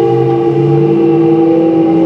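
Hitachi GTO-VVVF inverter and traction motors of a Kintetsu 1031 series electric train whining as it accelerates away: several held tones, one drifting slowly upward, with small steps in the lower tones.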